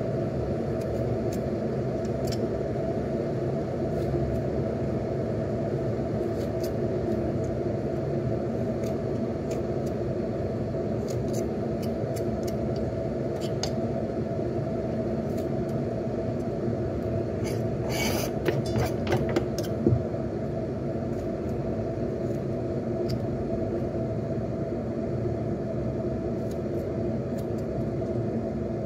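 Kitchen knife carving lengthwise grooves into a peeled carrot on a wooden chopping block: light scrapes and scattered clicks, with a short run of sharper taps about two-thirds of the way through. Under it runs a steady low hum.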